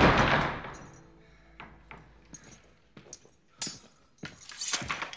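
Film sound effects: a loud sudden whoosh at the start that fades away over about a second, then soft scattered footsteps, clicks and rustles.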